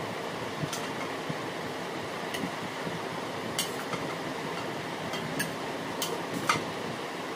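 Serving spoon clinking against ceramic plates and a bowl as rice is dished out, a handful of sharp clinks, the loudest about six and a half seconds in, over the steady whir of a fan.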